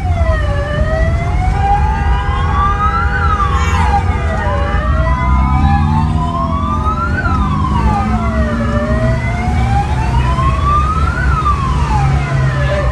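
Fire-response vehicle sirens wailing in slow rising and falling sweeps about four seconds apart, with a second siren overlapping. A vehicle engine runs underneath, its pitch climbing in the middle as it picks up speed.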